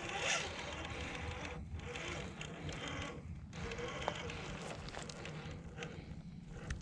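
Traxxas TRX-4 RC crawler running over rock: its brushed motor and drivetrain whirring steadily, with small scattered clicks and scrapes from the tyres and chassis.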